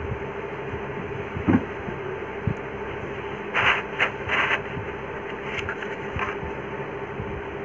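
Handling noise as a new paper cone is set into a 15-inch speaker's frame. There is a knock about one and a half seconds in and a few brief rustling scrapes around the middle, over a steady background hum.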